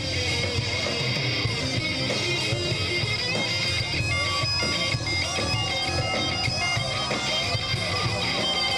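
Electric guitar played live through an amplifier. Sustained, droning tones are held throughout, and notes bend up and down over them.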